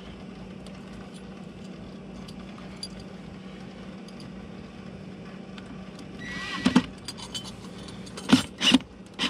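Cordless drill with a Phillips bit driving a screw through a transducer mount into an aluminum boat's transom. After a stretch of faint steady hum, the drill motor whines briefly about six seconds in, then gives a few short, loud bursts near the end as the screw is run in.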